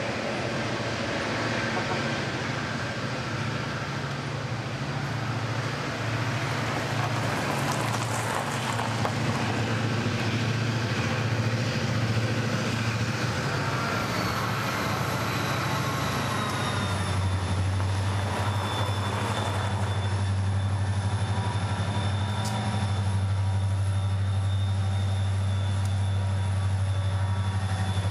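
Norfolk Southern diesel locomotives moving past with autorack cars: a steady low engine drone. Several of the engine's tones slide down in pitch about halfway through, and the drone settles a little lower after that.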